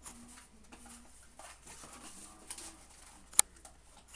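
Packaging and boxed accessories being handled: soft rustling and light taps, with one sharp click about three and a half seconds in.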